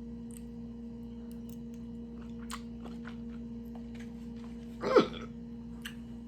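Someone chewing a Kool-Aid pickle: faint, scattered small clicks and crunches, with a short voice reaction about five seconds in. A steady electrical hum runs underneath.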